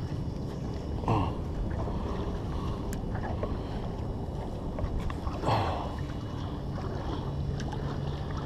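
Small choppy waves lapping against a drifting boat's hull, with wind rumbling on the microphone; two louder slaps of water come about a second in and again past the middle.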